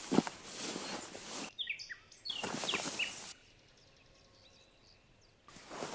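Small birds chirping in short falling notes over crackling, rustling noise, with one sharp click just after the start. The rustling drops out briefly near the middle and again for about two seconds later on, leaving only faint chirps.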